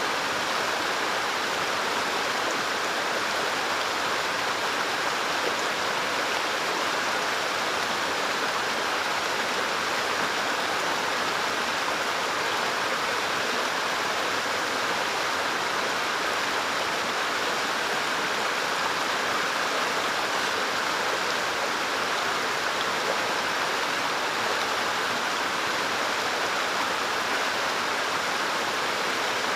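A rocky stream flowing over stones: a steady, even rush of water.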